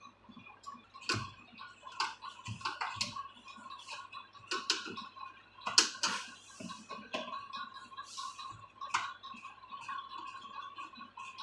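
Irregular sharp clicks and light knocks, about a dozen, the loudest near the middle, over a faint steady hum.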